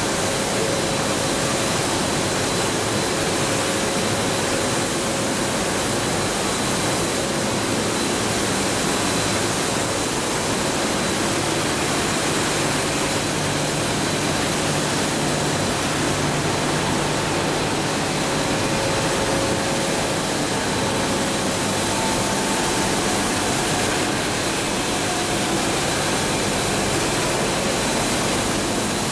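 Steady industrial noise from a coil car mat production line: machinery and the fans and blowers of its long enclosed oven. It is an even, hiss-like roar with a faint steady high whine.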